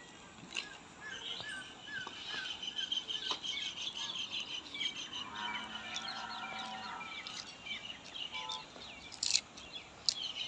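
Small birds chirping and twittering in rapid repeated calls, with a few sharp clicks.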